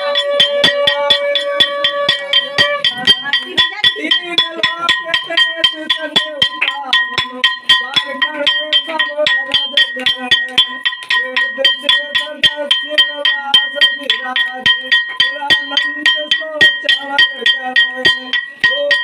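Puja hand bell rung rapidly and steadily for the aarti, about four to five strokes a second, its ringing carrying on between strokes, with singing underneath.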